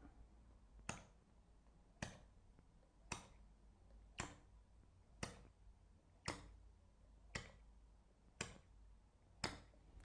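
Handheld suction cupping gun with a small plastic cup doing flash cupping on the skin: a sharp click about once a second, nine in all, as the cup is quickly applied and released again and again.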